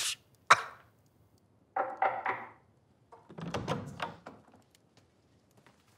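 A single loud knock on a wooden door about half a second in, followed by quieter sounds of the door opening and someone stepping in.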